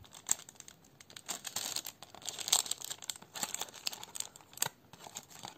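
Thin translucent paper sample envelope crinkling and rustling in the hands, with irregular crackles as fingers pick at its sealed flap to open it.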